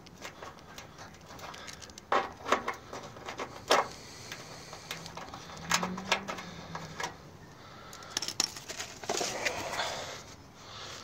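Scattered clicks, taps and scrapes of a hand working the edge of a plastic wheel-well liner, with a longer rustling stretch near the end.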